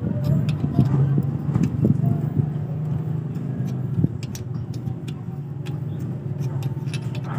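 A motor vehicle engine running steadily, with scattered light clicks.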